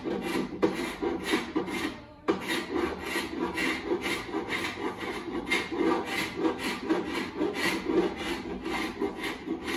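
Hand paint scraper drawn over and over across a wooden window sash, scraping off thick, old paint build-up, about two or three strokes a second with a short pause about two seconds in.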